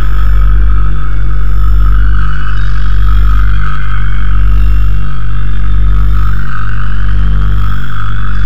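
Loud, distorted drone music: a heavy, steady low drone with a hazy, hissing band above it, holding unchanged throughout.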